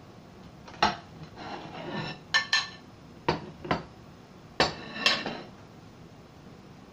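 Dishes and utensils clattering on a kitchen counter as sliders are plated: a series of sharp clinks and knocks, with scraping between them.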